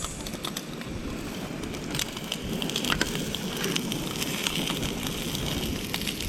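Wood fire crackling, with irregular sharp pops and snaps over a steady low rustle.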